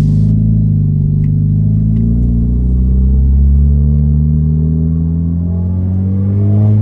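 Straight-piped Dodge Dart's exhaust droning at low revs, its note climbing near the end as the revs rise.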